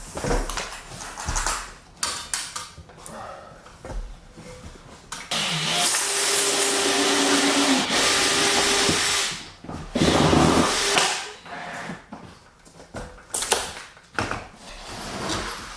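Power drill running in bursts, the longest about four seconds with a steady motor tone, then a shorter one, among knocks and clatter of wood being handled.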